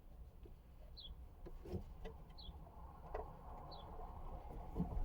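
A bird repeating one short, high, falling chirp about every second and a half, faint, with a few light knocks and clicks from handling the plastic trim parts.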